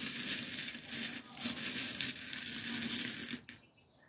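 A heap of small metal charms jingling and clinking as a hand stirs through them in a glass dish. It stops about three and a half seconds in.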